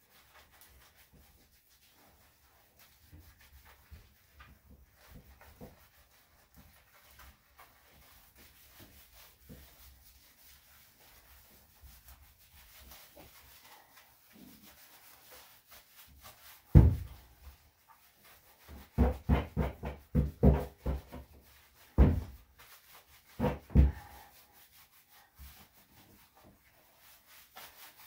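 Hands scrubbing shampoo lather into a wet Cocker Spaniel's thick coat: soft rubbing of soapy fur. In the second half comes a string of loud, short thumps and knocks, about a dozen over seven seconds.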